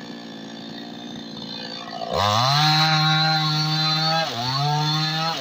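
New West 628 two-stroke chainsaw running at low revs, then throttled up sharply to full speed about two seconds in, dropping briefly near the four-second mark before revving back up.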